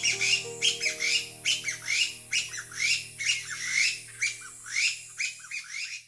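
Taiwan bamboo partridges calling: a rapid series of short calls repeated about three times a second. Soft background music with long held notes plays underneath.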